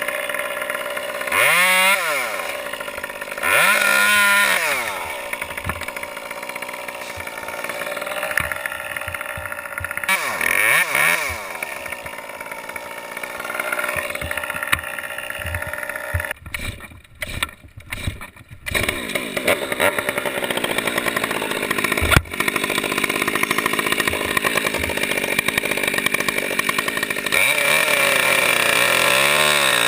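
Chainsaw engine running, revved up and back down four times with rising and falling pitch, with steady engine noise between the revs. A single sharp knock comes a little past the middle.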